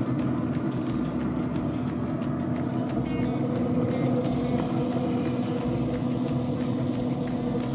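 Traeger pellet grill running at temperature: a steady hum from its combustion fan, with a constant low tone.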